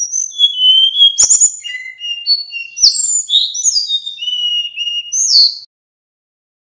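Male sikatan bambu (bamboo flycatcher) singing a varied song of clear whistled notes at different pitches, several sliding downward, with a couple of sharp clicks. It starts abruptly and stops about five and a half seconds in.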